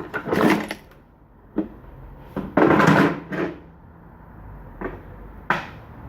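Hand tools and metal parts being handled: several separate knocks and clunks, with a louder stretch of clattering about two and a half seconds in.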